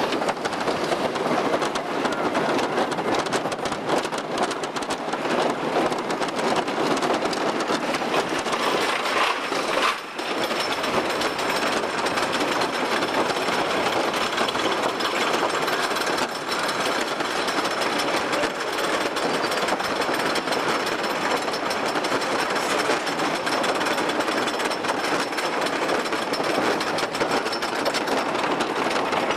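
Wooden roller coaster train running on its track, heard from a seat aboard: a loud, dense, rapid clatter and rattle that carries on without a break. It briefly dips about ten seconds in.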